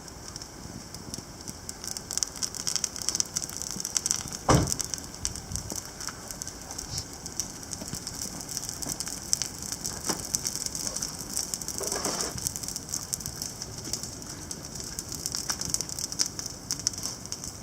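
Wood campfire burning, crackling with many small pops over a steady hiss. A single heavy thump comes about four and a half seconds in.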